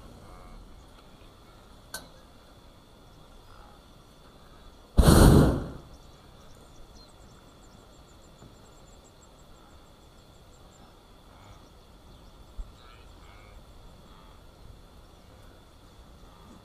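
Hot-air balloon's propane burner firing in one short blast about five seconds in, with quiet stretches either side. Faint high chirping is heard between blasts.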